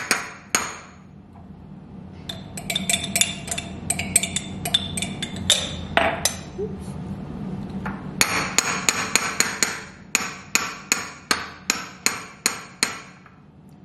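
Metal spoon knocking against a small glass bowl to shake off mayonnaise: sharp clinks with a short glassy ring, in scattered clusters at first, then a quick run of about a dozen taps near the end.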